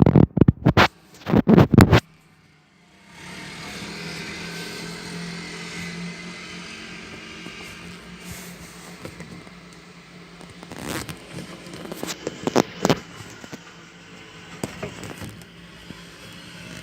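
Washing machine running: loud knocks and clatter at first, then after a short pause a steady motor hum with a held low tone starts about three seconds in, broken by a few more sharp knocks later.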